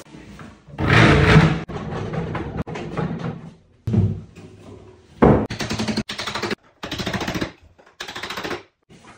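A power tool runs in a series of short bursts, each a rapid hammering rattle. The loudest burst comes about a second in.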